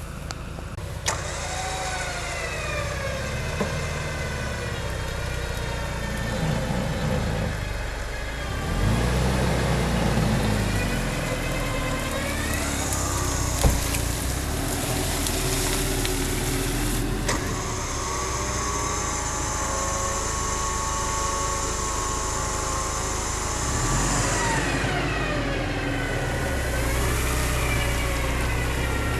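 Off-road SUV engine running and revving, its pitch rising and falling several times over a steady low hum, with a single sharp knock about halfway through.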